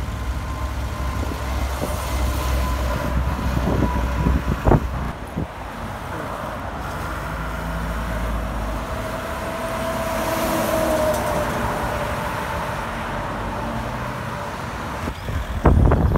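Highway traffic passing: heavy trucks and cars going by, engines and tyre noise swelling and fading. A heavy low rumble fills the first half, and a truck's tone rises and falls in the middle. Brief loud bumps come about four and a half seconds in and again near the end.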